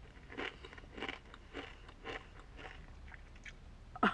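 Close-up crunching of tortilla chips being chewed, about two crunches a second, with one sharper, louder sound near the end.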